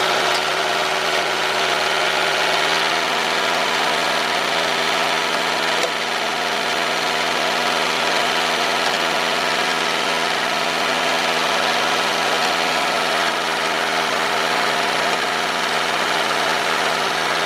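Small electric gear motors of a miniature DIY model tractor running steadily: an even, unbroken mechanical whir.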